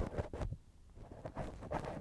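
Ear-cleaning ASMR on a binaural dummy-head microphone: irregular scratching and rubbing strokes with soft clicks and low thumps, right at the microphone's ear.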